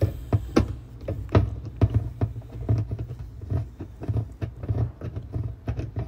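Irregular sharp clicks and small knocks of a hand-held multi-tool driver turning the plastic-housed retaining screw of a dishwasher's lower spray arm, about two or three a second, over a low steady hum.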